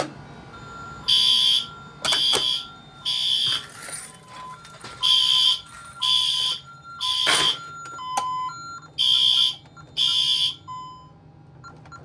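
Fire alarm horns sounding in the three-pulse evacuation pattern, set off by a manual pull station. The alarm keypad beeps between the blasts, and the horns stop near the end.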